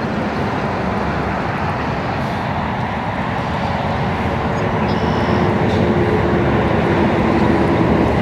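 Steady road and engine noise of a vehicle being driven, an even rushing hiss with a faint low hum.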